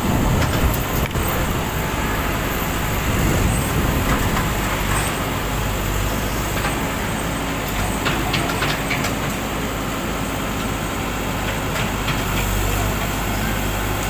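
Hyundai H940C backhoe loader's diesel engine running steadily close by, with a few scattered knocks and clatters as its bucket breaks up concrete walls and debris.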